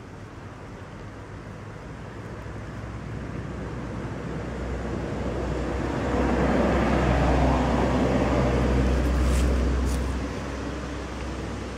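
A motor vehicle passing on a nearby road: engine rumble and tyre noise build slowly, are loudest for a few seconds, then drop away near the end.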